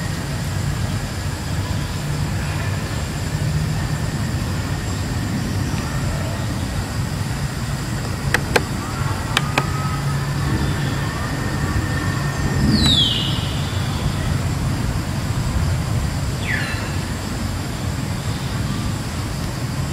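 Steady low rumble, with a few sharp clicks near the middle and two short falling whistles, the first about thirteen seconds in.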